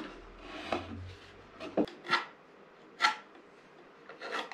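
Wood scraping and rubbing, from a plywood motor board being worked by hand. There are about four short, separate scrapes roughly a second apart, and a sharp knock a little before two seconds in.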